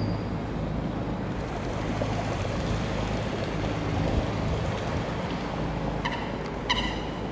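Steady low hum and rushing of a boat's engine running on the canal. Near the end, short high-pitched calls repeat about twice a second.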